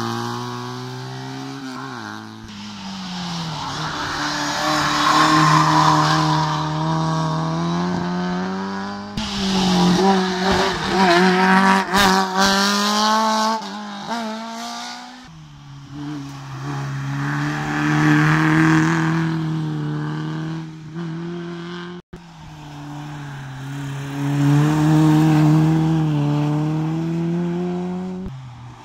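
Race car engines revving hard, the pitch climbing and dropping again and again through gear changes and lifts off the throttle, the sound swelling and fading as cars come closer and pull away. The engine is cut off for an instant about 22 seconds in.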